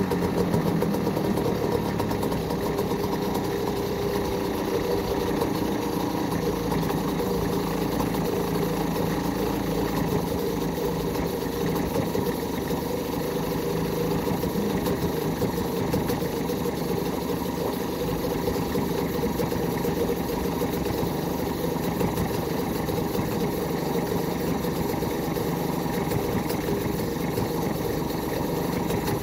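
2003 Mercury 3.3 hp two-stroke outboard motor running steadily at low revs.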